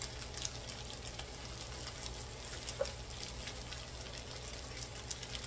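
Fried rice sizzling faintly in an electric skillet: a quiet, steady hiss with scattered light crackles over a low hum.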